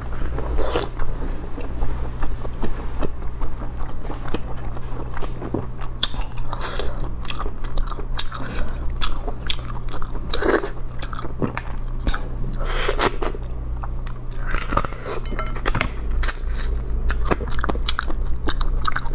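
Close-miked chewing of spicy stir-fried sea snail meat: irregular wet smacks and clicks of the mouth, with a few louder bursts of chewing. A steady low hum lies underneath.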